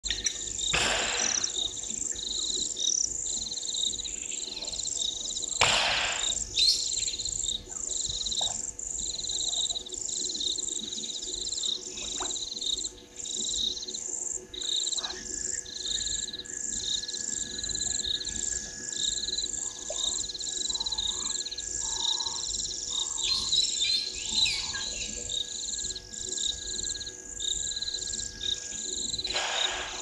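Steady chorus of insects, a shrill pulsing trill at two pitches. A few short harsh bird calls cut through it, about a second in, near six seconds and near the end, with smaller calls in between.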